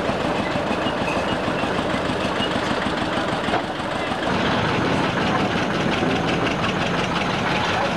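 Narrow-gauge locomotive engines running steadily. After a cut about four seconds in, a diesel locomotive's engine runs with a regular knocking beat.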